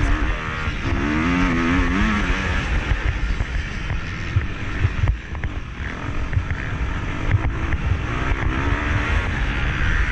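Motocross motorcycle engine under race load, its pitch rising and falling as it revs up and down around 1–2 s and again near the end, over a heavy, irregular low rumble.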